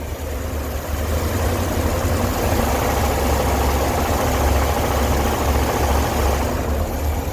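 Dodge B350 van's engine running steadily at low speed, a low drone with road and cab noise over it.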